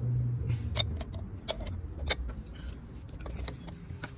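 A few sharp metallic clinks as a large spindle-nut socket and ratchet are fitted onto a truck wheel hub's spindle nut, over a low steady rumble.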